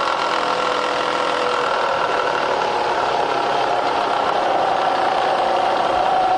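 Bridgeport vertical milling machine's variable-speed head running in low range, its motor and spindle drive giving a steady hum and whine. The pitch of the whine slowly shifts downward as the speed dial is turned down.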